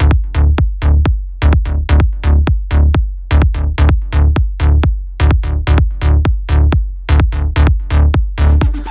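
Electronic background music with a steady, fast beat of regular drum hits.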